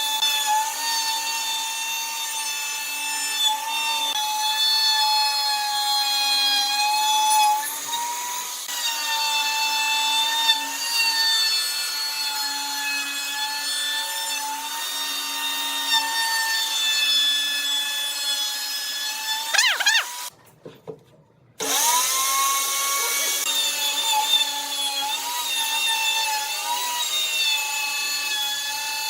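Handheld electric power tool working wood: a high motor whine that wavers slightly as it loads. About twenty seconds in it winds down and stops, then starts up again a second and a half later.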